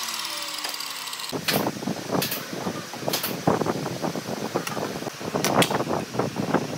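A miter saw's blade winding down after a cut, its pitch falling, then from about a second in a run of light knocks, clicks and scrapes as wooden boards and a steel rule are handled on a workbench and a pencil marks the wood.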